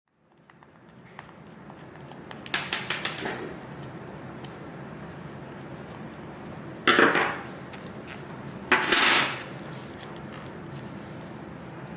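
Metal clinks and rattles of a spanner, screwdriver and bolt being worked on a folding bike's seat post clamp. A quick run of about six ticks comes early, followed by two louder clatters a couple of seconds apart.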